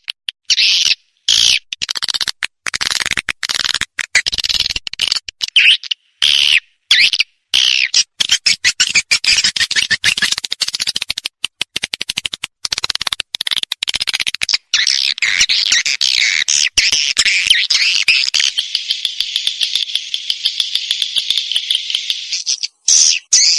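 Recorded swiftlet calls played as a lure track: quick twittering chirps broken by short gaps, turning into a dense, unbroken chatter about three-quarters of the way through, then short quick chirps again near the end. It is a call sound meant to draw swiftlets to a nesting house.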